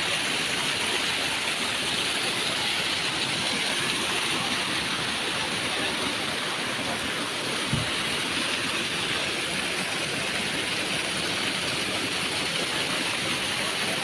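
Waterfall: a steady, even rush of falling water, with one brief low bump about eight seconds in.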